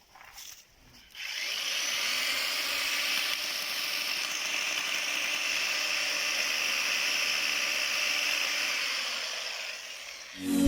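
A 16-inch electric chainsaw runs steadily. It starts about a second in and stops shortly before the end.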